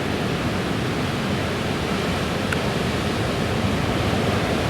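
Steady rushing noise of heavy storm surf on the Black Sea shore, with no single wave break standing out.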